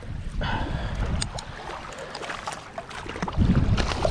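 Wind rumbling on the microphone at the water's edge, with water noise and a few small clicks; the rumble swells briefly near the end.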